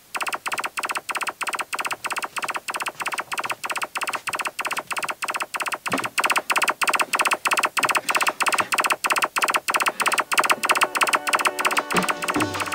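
Sonarworks Sound iD Reference measurement signal played through Neumann KH120 studio monitors: a steady, rapid train of short clicks, about four a second, as the software takes room frequency response readings at the microphone position.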